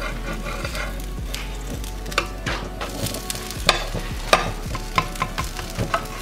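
Sago-and-potato pancakes sizzling on a flat griddle while a metal spatula scrapes and taps against the pan to turn them. There are several sharp clicks and scrapes through the second half.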